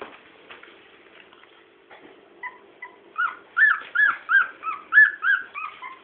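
Nursing Chow Chow puppies whimpering and squealing: a quick run of about ten short, high cries, each rising and falling in pitch, starting about halfway through.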